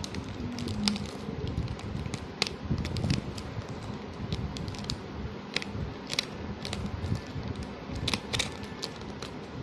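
Toy model car's packaging being handled and opened: irregular clicks and crackles of cardboard and plastic over a steady low hum.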